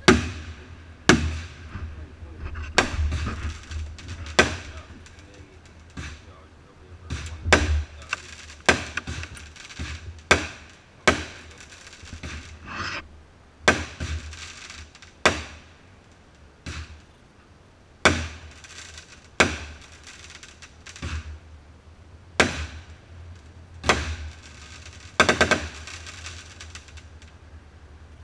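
Aerial firework shells bursting overhead: a string of about twenty sharp bangs, roughly one every second or so, each with a rolling echo, and a quick cluster of crackling reports near the end.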